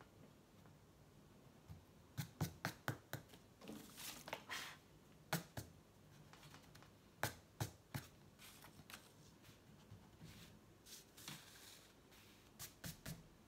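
Pencil and hands working on sketchbook paper, faint: quick sharp pencil taps and strokes in small clusters, four in a row a couple of seconds in and three near the end, with softer rubbing of a hand brushing across the paper between them.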